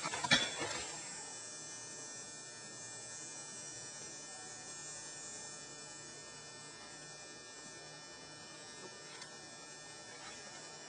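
Steady electrical buzz with several fixed tones, after a brief noisy burst in the first second.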